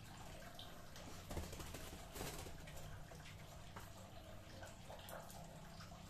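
Faint trickling and dripping water with scattered small clicks, and two louder brief noises about one and a half and two seconds in.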